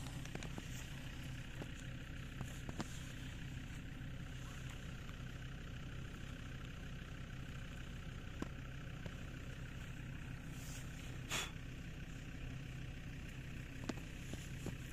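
Steady low motor hum, like an engine running in the distance, with a few faint clicks and a brief rustle about eleven seconds in.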